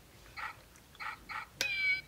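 Electronic siren unit playing its recorded animal sounds through a small horn speaker: three short dog barks, then a high cat meow starting near the end.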